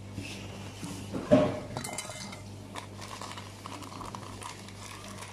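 Kitchenware clinking and knocking as an enamel pot and metal utensils are handled, with one louder knock just over a second in and lighter clicks after, over a steady low hum.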